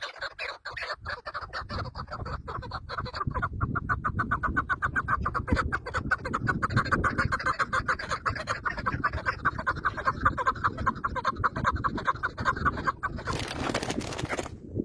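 A bird calling in a rapid, even run of short repeated notes, followed by a brief burst of noise near the end.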